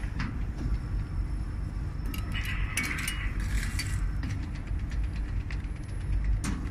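Hexagonal wire mesh weaving machine running: a steady low rumble with scattered metallic clicks, and a cluster of jingling clinks about two to four seconds in.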